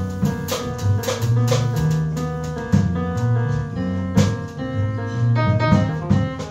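Live jazz from a piano trio: grand piano chords and runs over low double bass notes, with a drum kit keeping time on cymbals and drums.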